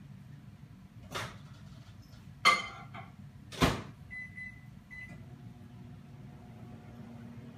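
Two cats sparring: three short, sharp bursts of noise about a second apart, the loudest with a pitched edge to it. A few short high beeps follow.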